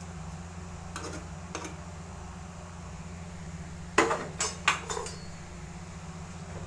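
A metal cooking utensil knocking and clinking against a pan: two light taps about a second in, then a quick run of four sharper clanks about four seconds in, the first the loudest. A steady low hum runs underneath.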